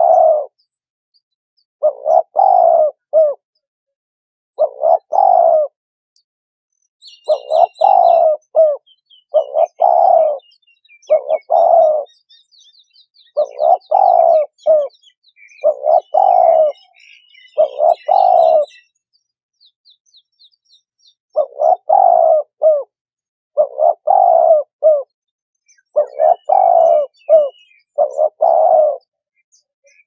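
Turtle dove cooing: short phrases of a few soft notes, each about a second long, repeated roughly every two seconds. Fainter high chirps and twitters of small birds come in behind it for much of the middle and again near the end.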